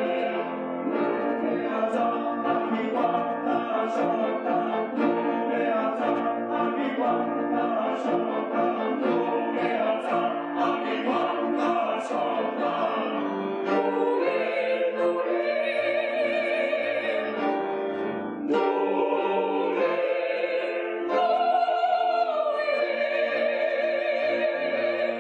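Church choir singing an anthem. About halfway through, the lines move from shorter notes into long held chords sung with vibrato, with brief breaks between phrases; the last chord is held to the end.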